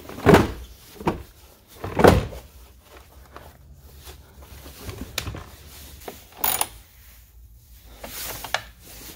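An H6 group-size car battery being dropped into its tray and shifted into place: two heavy thunks about two seconds apart, then several lighter knocks and clicks.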